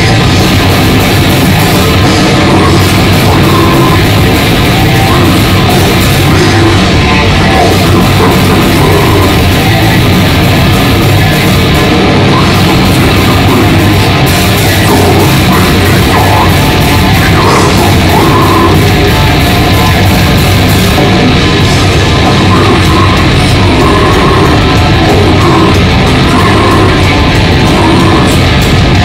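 Heavy metal band playing live at full volume, with electric bass and guitars in a dense wall of sound that never lets up.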